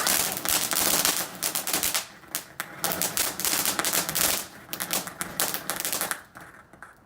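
Firework crackling: a dense rapid run of small sharp bangs for about two seconds, then sparser crackles that thin out and die away about six seconds in. It is noisy.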